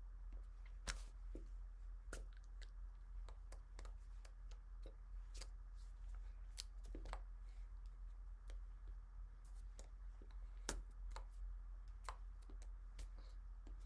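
Scattered faint clicks and smacks from a person signing, hands and lips making small contact noises, over a steady low hum.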